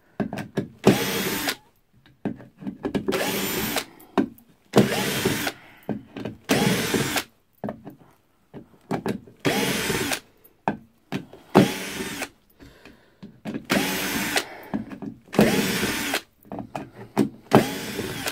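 Einhell TE-CD 18/40 Li cordless drill-driver running in reverse in about nine short trigger bursts, backing black drywall screws out of a wooden board one after another. Each burst is a motor whine that rises as it spins up and then stops, with small clicks between bursts.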